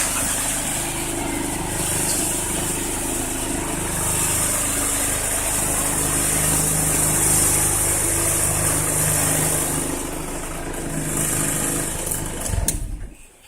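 Nissan 240SX four-cylinder engine idling roughly, a steady low running note with some hiss above it. It cuts off abruptly near the end.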